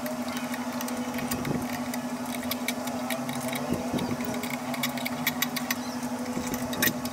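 Scattered light metallic clicks and taps from a steel linear-rail carriage and ball-screw assembly being handled, with a louder click near the end, over a steady machine hum.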